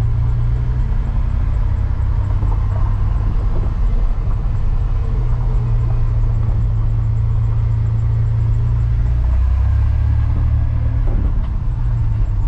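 Ford 300 cubic-inch inline-six engine of a 1993 F150 pickup running steadily as the truck drives slowly, heard from inside the cab. The engine note drops lower about nine seconds in.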